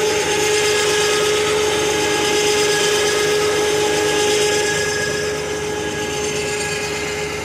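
Rugcel truck-mounted electric crane winch running under load, its motor whining at a steady pitch as it reels in cable and lifts a portable generator.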